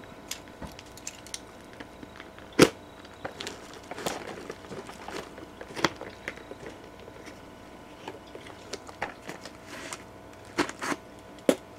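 Scissors snipping at tough packing tape on a cardboard shipping box, with the box being handled: a scattering of short, crisp cuts and clicks, the sharpest about two and a half seconds in and a few more near the end.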